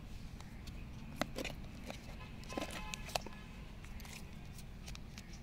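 Light clicks and taps of a cardboard phone box and its tray being handled as a phone is lifted out, a few sharp ones about a second and three seconds in, over a steady low background rumble.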